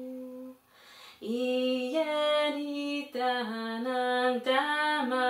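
A woman's voice singing a wordless chant. A held note ends, a breath is drawn about a second in, then she sings a phrase of short notes stepping up and down.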